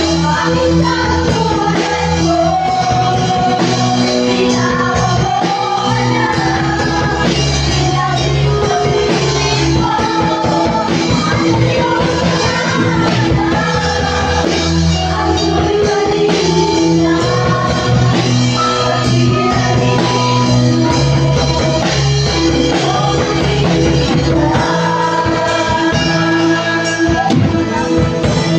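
A live worship band playing a song: voices singing a melody in Filipino over sustained keyboard chords, guitar and drums.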